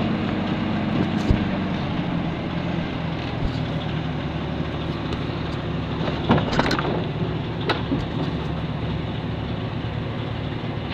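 An engine runs steadily as the machine lifting a fiberglass boat hull out of its mold works. A few sharp knocks and clicks cluster about six to eight seconds in.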